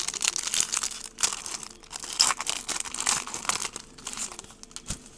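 Foil trading-card pack wrapper crinkling and being torn open, a dense crackle that thins to a few scattered clicks about four seconds in.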